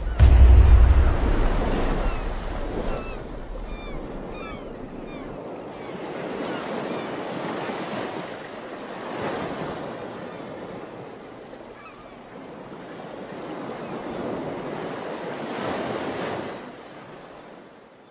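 Ocean waves surging and washing in slow swells, with gulls calling faintly in the first few seconds. A deep low boom at the very start is the loudest moment, and the surf fades out at the end.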